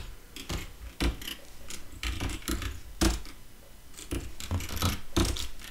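Computer keyboard keys being pressed: a dozen or so separate, irregularly spaced clicks, the loudest about three seconds in.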